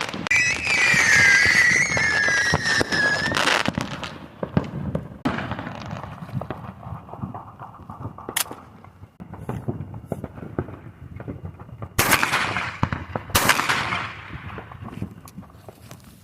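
Fireworks going off: a wavering whistle for about three and a half seconds ending in a bang, then scattered crackling pops, and two more loud bursts near the end.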